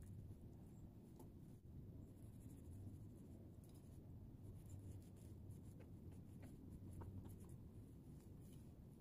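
Faint scratchy scraping and soft ticks of a kitchen knife cutting and scraping the dirty flesh out of a lion's mane mushroom, over a low steady background rumble.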